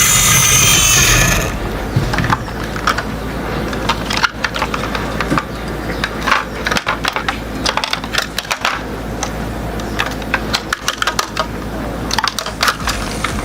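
Irregular small clicks, taps and knocks of hard parts being handled, typical of a diecast model truck being moved and worked by hand, after music cuts out about a second and a half in.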